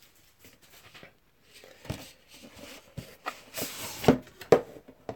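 Hands working open a 2017 Panini Immaculate Collection baseball card box: soft scuffing and scraping with a scatter of sharp taps and knocks, busier in the second half.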